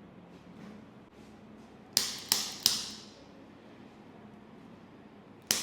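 Three sharp strikes in quick succession, about a third of a second apart, about two seconds in, each dying away quickly; another run of them begins right at the end.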